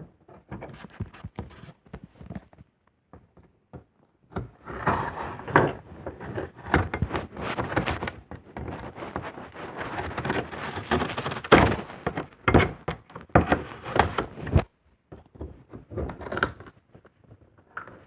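A new box fan being unpacked from its cardboard box: irregular scraping and rustling of cardboard and packing, with several sharp knocks in the busiest stretch near the middle.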